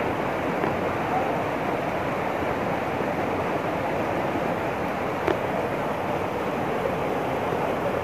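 Steady rushing of a waterfall and the fast rocky stream below it, with a single brief click about five seconds in.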